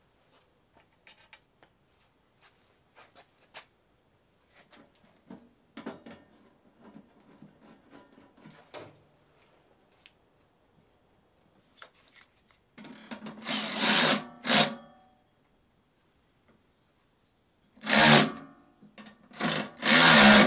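Faint clicks and knocks of handling parts, then a cordless power tool's motor run in short bursts of a second or two: once near the middle and twice near the end.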